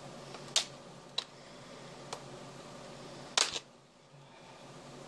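Plastic latches of a Toshiba Satellite laptop's display lid clicking and snapping as the lid is pried apart: a few sharp snaps, the loudest about three and a half seconds in.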